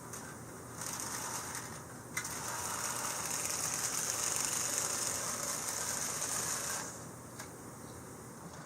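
Vintage Marx 1829 toy train locomotive running on its track, its electric motor and gears whirring and clattering; it starts about a second in, gets louder about two seconds in, and stops near the end.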